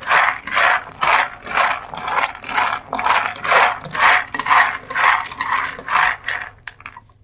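Peanuts rattling against a frying pan as they are stirred round while roasting, in regular strokes about twice a second; the stirring stops near the end.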